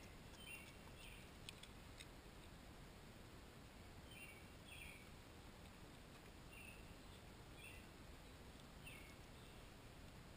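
Near silence with faint bird chirps: short falling calls, often in pairs, every second or two. A few faint clicks come in the first two seconds.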